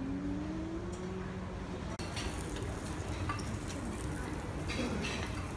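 Open buffet kitchen: a steady hum and hiss from the cooking station, with dishes and utensils clinking from about two seconds in.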